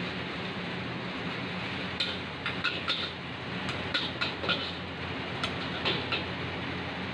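Steel spatulas clanking and scraping against a carbon-steel wok as noodles are stir-fried, in bursts of sharp clanks from about two seconds in, over the steady roar of the wok's gas burner.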